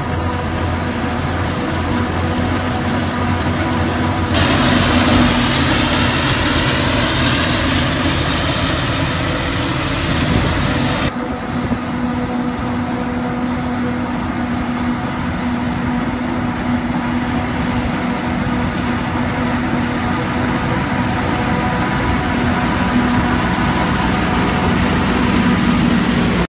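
A Claas self-propelled forage harvester runs at full work, chopping silage maize and blowing it through its spout into a trailer, with a tractor's engine running alongside. The machine noise is loud and steady, with a hissier rush from about four to eleven seconds in.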